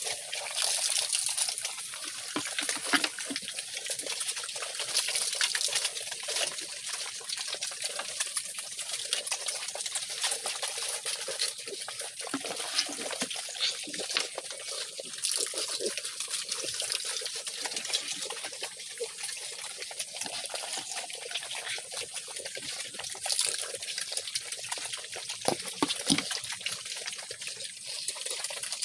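A group of piglets eating wet mash from a trough: a steady, wet run of slurping, smacking and chewing.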